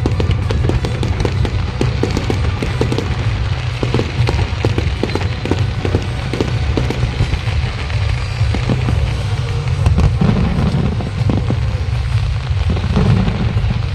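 A fireworks display with many bangs and crackles in quick succession, thinning out after about ten seconds, over loud music with a heavy bass line.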